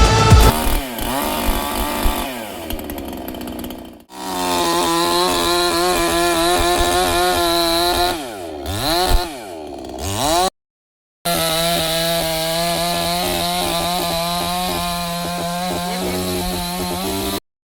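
58cc two-stroke petrol chainsaw (5820CS) running at high speed, its pitch wavering, dipping and recovering as the revs change. The sound stops abruptly twice.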